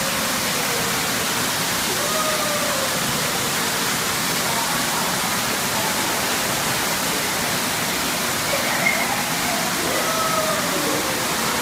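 Steady rush of water pouring from an overhead pool shower spout and splashing onto the pool surface, with a few faint high voices now and then.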